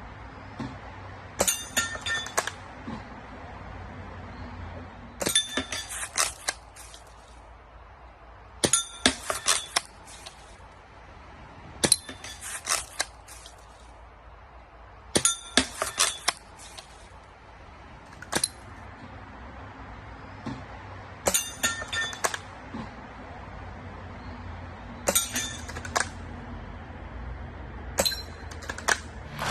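Pellets striking a metal target: short clusters of sharp metallic clinks that ring briefly, coming about every three to four seconds.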